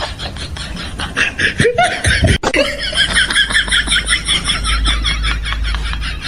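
A person laughing, a quick run of high giggles about five a second.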